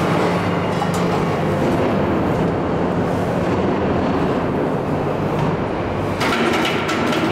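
Hydraulic sectional screw flight forming machine running steadily with a low hum while its moulds press a steel plate blank into a screw flight. About six seconds in, a harsher hiss with a high whine joins the hum.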